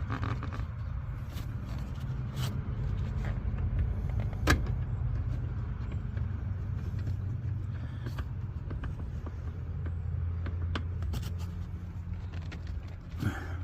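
A steady low mechanical rumble, like a motor running, with scattered light clicks and one sharp click about four and a half seconds in.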